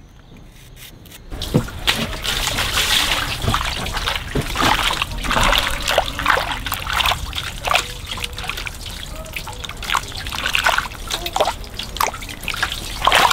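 Water trickling and splashing with small clicks and knocks as cut palm heart is washed in water, starting about a second in.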